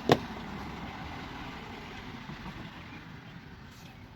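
A single sharp click, as of a metal hand tool being handled or set down, just after the start, over a steady low background hum.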